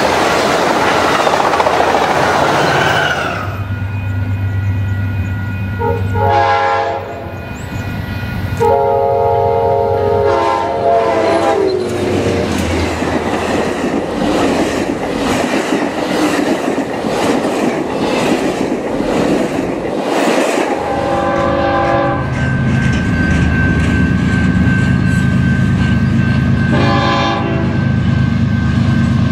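Diesel trains passing: a loud rush of passing railcars at the start, then a diesel locomotive's low steady drone with several air horn blasts, one of them long, about 9 to 12 seconds in.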